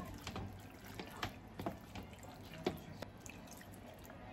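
Cooking spoon stirring a creamy stew in a frying pan: a few light taps against the pan over quiet liquid sounds.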